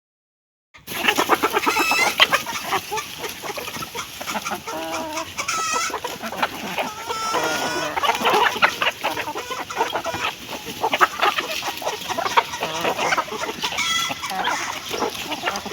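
Hens clucking as they feed, with many short calls overlapping and sharp clicks mixed in. The sound starts abruptly about a second in.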